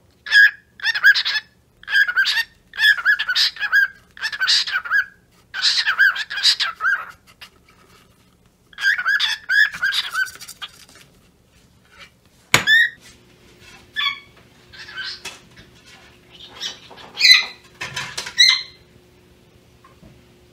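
Cockatiel chirping and chattering in repeated bursts of short pitched calls, with pauses between the bursts. A single sharp click is heard partway through.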